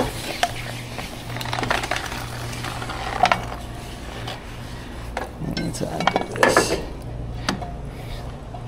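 Scattered metal clinks, clicks and knocks of pressure-washing gear being handled and packed up, over a low steady hum.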